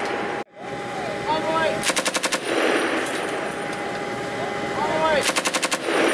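Vehicle-mounted belt-fed machine gun firing two short bursts of about half a dozen rapid shots each, about three seconds apart.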